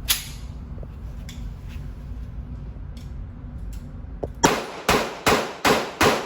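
A quick string of about six gunshots, one every half second or less, starting about four seconds in, after a single sharp crack near the start. A low wind rumble runs underneath before the string.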